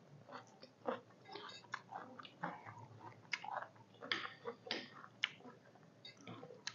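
Close-miked chewing and biting of people eating chicken soup, with irregular wet smacks and small clicks.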